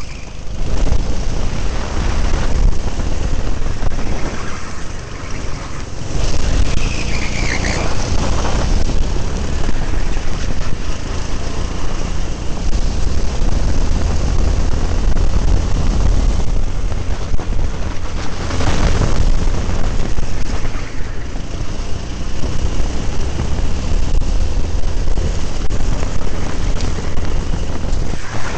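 Kart running at racing speed, its engine noise mixed with heavy wind buffeting on the onboard microphone. A brief falling whine comes about seven seconds in.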